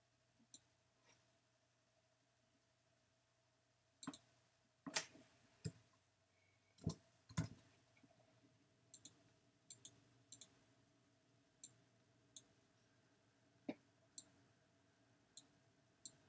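Computer mouse buttons clicking: about twenty sharp clicks at irregular intervals, several of them quick double-clicks, most of them in the middle of the stretch. A faint steady hum lies underneath.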